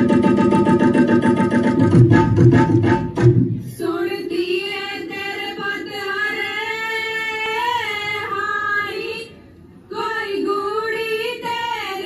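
Punjabi folk-dance music: about three seconds of fast drumming, then a woman's voice singing long, wavering held notes. The singing breaks off briefly about three-quarters of the way through, then resumes.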